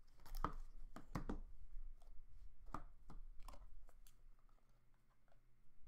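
Folding knife slitting the seal on a sealed trading-card box, then the cardboard box being pulled open: a run of short crackles and scrapes over the first four seconds, then quieter handling.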